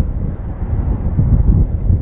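Strong wind buffeting the microphone: a low rumble that swells and drops in gusts.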